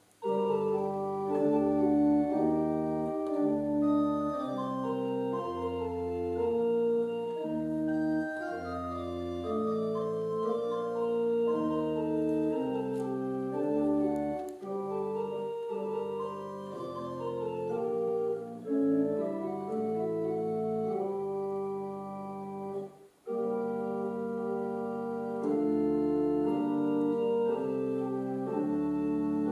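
Pipe organ playing a slow piece in held chords over a low pedal bass, the chords changing about once a second. The playing stops briefly about three-quarters of the way through, then resumes.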